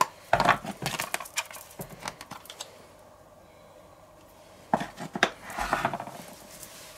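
Plastic spice shakers shaken over a stainless steel mixing bowl and set down on a wooden cutting board: a cluster of sharp clicks and knocks in the first two seconds, a quiet gap, then another run of knocks and rattles about five seconds in.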